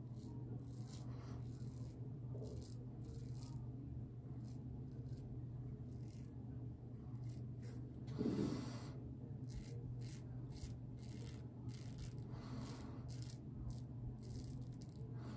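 Mühle R41 open-comb safety razor scraping through lathered stubble on the neck, a quick crisp rasp with each of many short strokes, over a low steady hum. A brief louder noise comes about eight seconds in.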